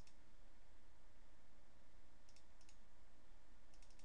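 Computer mouse button clicks: one click at the start, then quick double-clicks from about two seconds in as folders are opened in a file dialog. A faint steady hum lies under them.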